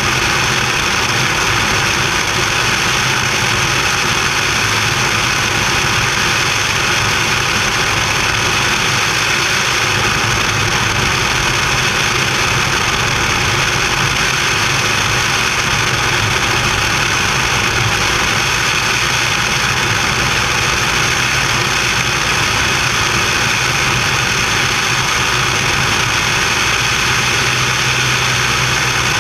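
Small airplane's engine and propeller running steadily, heard through heavy wind rush over an action camera mounted outside under the wing, as the plane descends on approach to land.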